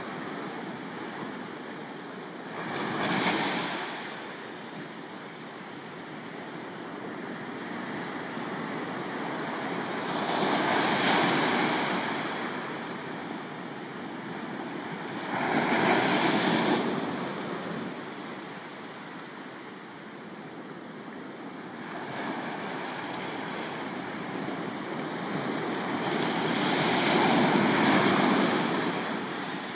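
Ocean surf breaking against shoreline rocks and washing back: a steady wash that swells into four louder surges, the last and longest near the end.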